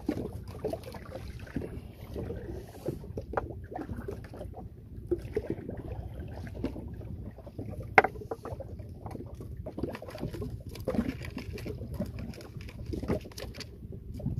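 Steady low rumble of wind and water around a wooden fishing boat, with scattered light knocks and clicks as fishing line and a hook are handled against the hull; one sharp click about eight seconds in is the loudest.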